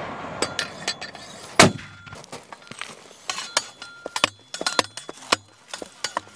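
A single loud light-mortar shot about a second and a half in, followed by a run of short sharp clicks and clinks.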